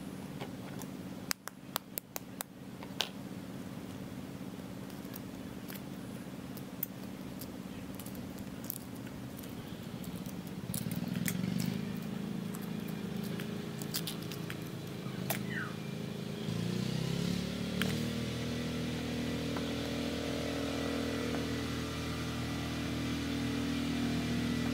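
A boiled egg's shell cracked and peeled by hand: a cluster of sharp cracks in the first few seconds, then scattered small clicks. Under it an engine hums steadily, growing louder about ten seconds in and shifting pitch a few seconds later.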